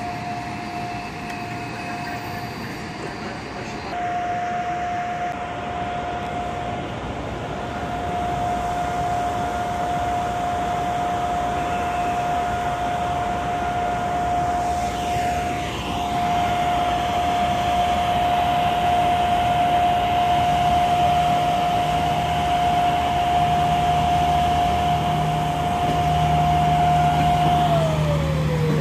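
Approaching PKP Intercity EU44 Husarz (Siemens Taurus) electric locomotive with its express train: a steady high whine grows louder with a low rumble building under it. As the locomotive reaches and passes, near the end, the whine drops sharply in pitch.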